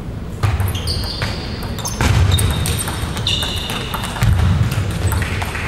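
Table tennis rally: the ball clicking sharply off the bats and table again and again, with players' shoes squeaking and feet thudding on the sports-hall floor.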